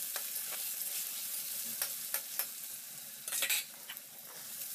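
Boiled mushrooms sizzling as they fry in oil and ghee in a metal wok, a steady hiss, while a spatula stirs and scrapes against the pan with scattered clicks. A louder burst of scraping comes a little after three seconds in.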